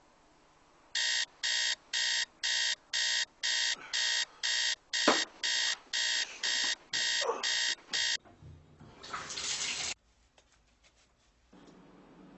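Electronic alarm clock beeping in a steady run of short, evenly spaced beeps, about two a second, waking a sleeper. The beeping stops about eight seconds in and is followed by a brief rush of noise.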